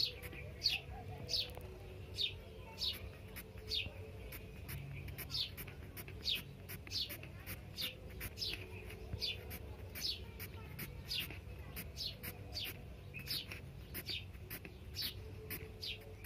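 A small bird chirping over and over, about two short falling chirps a second.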